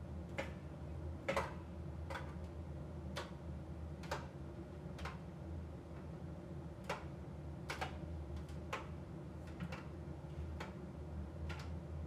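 AEG AbsoluteCare heat pump tumble dryer drying a load of cottons: a steady low hum from the running machine, with light clicks about once a second as the tumbling laundry knocks against the drum.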